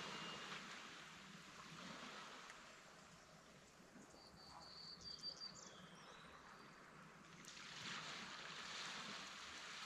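Near silence: a faint wash of outdoor noise, with a brief thin, high-pitched whistling tone and a few faint ticks about four to five seconds in.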